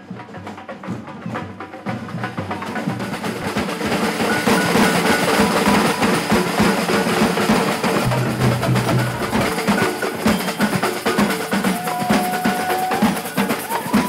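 Street parade drum band playing a fast, steady rhythm on large surdo-style bass drums and snare drums. It grows louder over the first few seconds as the band comes closer.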